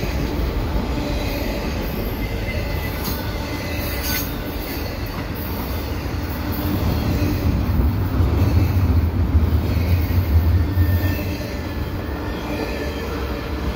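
Double-stack intermodal freight cars rolling past at speed: a steady rumble of steel wheels on the rails that swells for a few seconds in the middle, with a few faint clicks.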